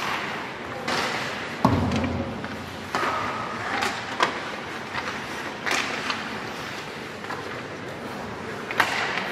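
Irregular sharp knocks and clacks of play in a team game, with one heavy thud about one and a half seconds in and a few short distant shouts.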